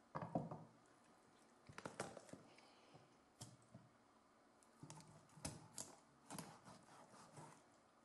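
A knife cutting raw chicken on a wooden chopping board: the blade taps and knocks on the board in short, irregular clusters, loudest right at the start and again past the middle.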